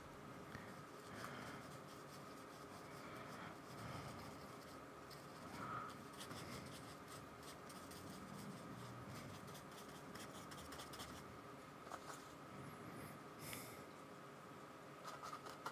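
Faint scratching and dabbing of a paintbrush laying acrylic paint on sketchbook paper, in short irregular strokes over a faint steady high hum.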